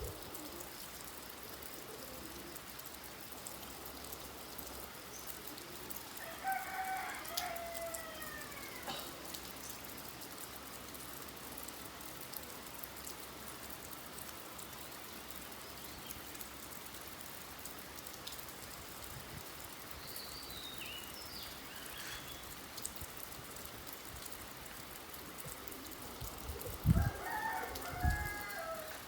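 Steady rain falling, with a bird giving a long, pitched call about seven seconds in and again near the end, and a higher bird chirping briefly in between. A couple of low thumps come with the call near the end.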